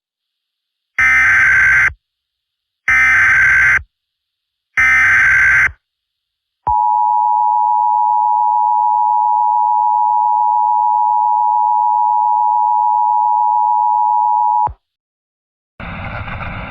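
Emergency Alert System alert: three buzzy SAME header data bursts of about a second each, then the EAS two-tone attention signal, a steady two-pitch tone held about eight seconds that cuts off abruptly. A steady rushing noise begins near the end.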